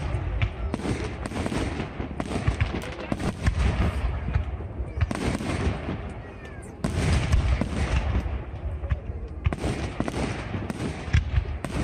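Aerial fireworks display: a dense, continuous run of sharp bangs and crackling with deep booms surging every few seconds.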